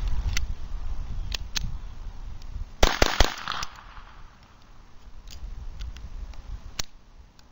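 Beretta 21A .22 LR pistol firing three quick shots about three seconds in. A few light clicks come before and after the shots.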